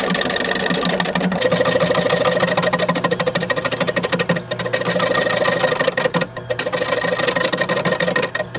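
Wood lathe running with a turning gouge cutting a spinning wooden handline reel blank: a steady motor hum under a fast, dense scraping chatter of the tool on the wood, which breaks off briefly a few times as the tool lifts. The gouges are worn dull, by the turner's own account.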